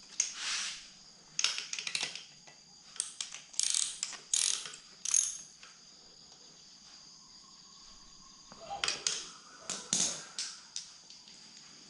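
Hand ratchet wrench clicking in short bursts as bolts are run in and tightened on a motorcycle being reassembled, in four spells of ratcheting with pauses between.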